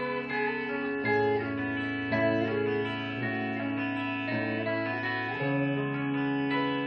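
A live band's amplified electric guitars play held chords, changing to a new chord about once a second.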